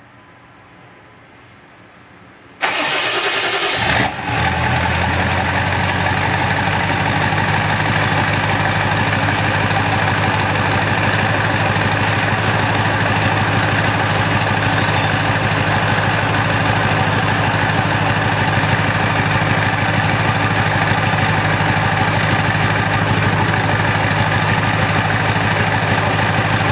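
Ford Excursion's 7.3 L Powerstroke turbo-diesel V8 cold-started: about two and a half seconds in it cranks briefly, catches about four seconds in, and settles into a steady diesel idle.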